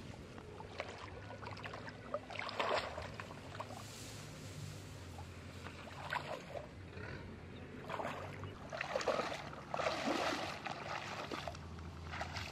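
Footsteps wading through shallow muddy water: irregular sloshes and splashes, busiest about two to three seconds in and again in the second half.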